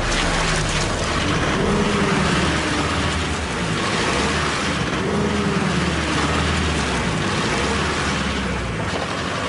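A pickup truck's engine revving up and down a few times while its driven rear wheels spin on a slippery skid pan, with a steady hiss of spinning tyres. The wheels cannot grip: the truck is too light for traction.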